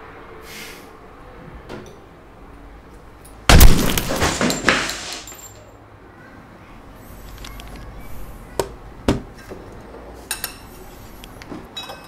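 A single loud pistol shot about three and a half seconds in, followed by a second or so of further knocks and clatter. Later come a few sharp clinks of cutlery against dishes.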